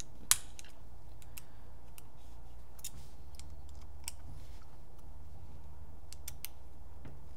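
Light scattered clicks and ticks of a hex key and small frame screws being worked into a paintball marker's grip frame, with one sharp click just after the start, over a low steady hum.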